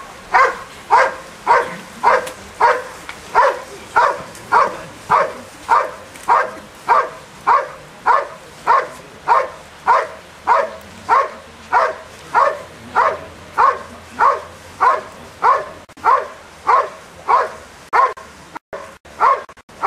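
Belgian Malinois barking at a helper in a hiding blind, single loud barks in an even rhythm of about three every two seconds: the hold-and-bark (bark at the blind) of IPO protection work.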